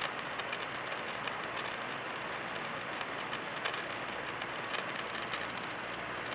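Handheld firework burning, with a steady hiss and rapid irregular crackling.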